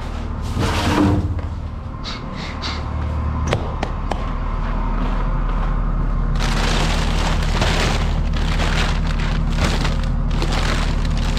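Tractor engine running steadily; it picks up and gets louder about four seconds in, and from about six seconds a loud rushing hiss joins it.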